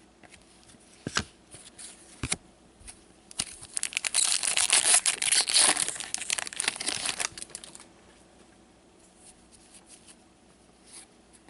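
Foil wrapper of a 2015-16 SP Authentic hockey card pack being torn open and crinkled for about four seconds, after a couple of sharp clicks.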